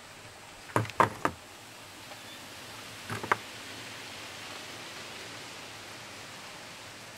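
Steady background hiss with sharp knocks: three in quick succession about a second in, and a couple more a little after three seconds, the second of these the sharper.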